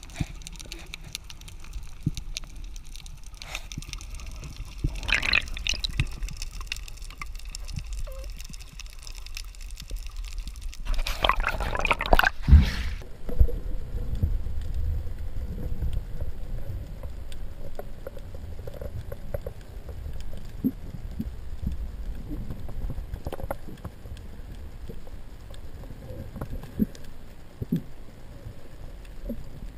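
Underwater sound as heard by a diver's camera: a low rush and gurgle of moving water with scattered small clicks. About eleven seconds in there is a louder rush of water lasting a couple of seconds.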